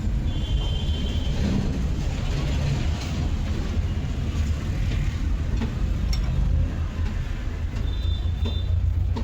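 Tata Super Ace engine running steadily with a low rumble, as it is checked for lost compression. A short high whistle sounds twice, once near the start and once near the end.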